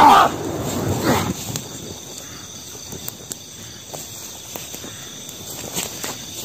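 Burning grass crackling with scattered sharp ticks, over a steady chirring of crickets; a short cry right at the start and another about a second in.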